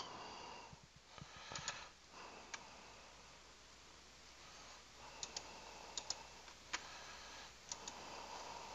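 Faint computer mouse clicks, about ten scattered through, several coming in quick pairs, over a faint steady low hum.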